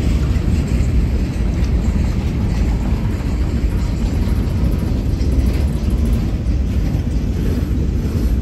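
Train passing close by: a steady, heavy low rumble.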